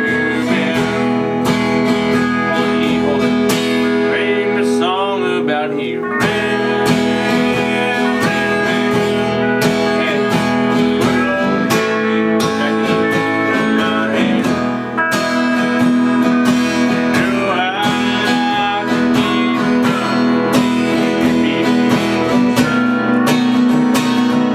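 Acoustic guitar strummed in steady chords, playing a simple song.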